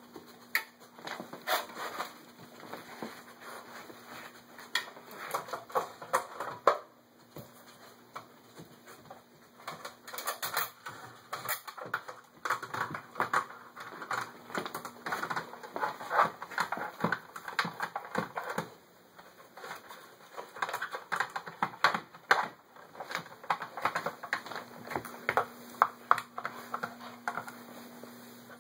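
Hard plastic star-shaped dog treat puzzle clattering and clicking as a puppy paws and noses at its layers and shoves it across a tile floor. The clicks and knocks come in irregular quick flurries.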